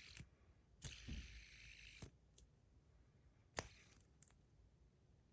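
A few light clicks and taps, one about a second in, another about two seconds in and a third near the middle, with a soft rustle in between: small objects being handled and set down. Otherwise near silence.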